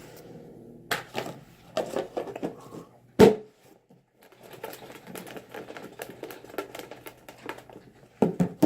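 Paper name tickets being stirred and drawn from a container: irregular clicks and rustling, with one sharp knock about three seconds in.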